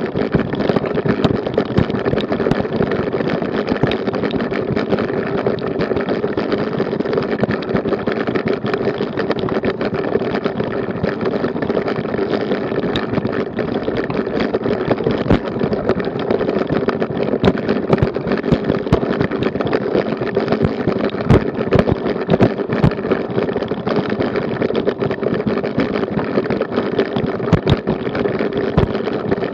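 Bike-mounted action camera shaken by a road bicycle riding over cobblestones: a constant dense clatter and rattle with frequent sharper jolts.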